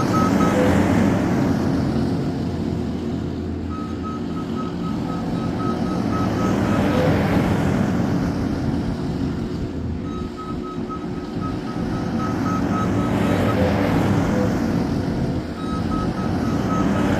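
New Holland C232 compact track loader's diesel engine running under load and swelling in revs several times, with its reversing alarm beeping in four stretches as the machine backs up repeatedly.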